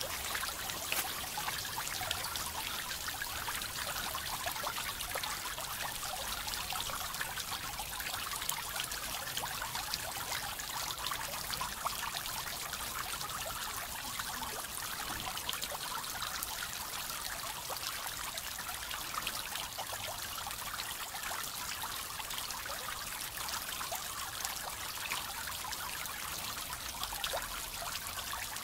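Garden pond fountain: a spray jet falling back onto the pond's surface, a steady splashing of many droplets.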